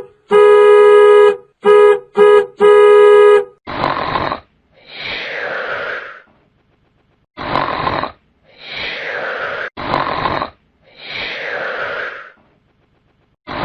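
Comedy sound effects: a buzzy horn-like tone honked in bursts, one long and several short, followed by four pairs of rough, breathy rasps, each a short one then a longer one falling in pitch.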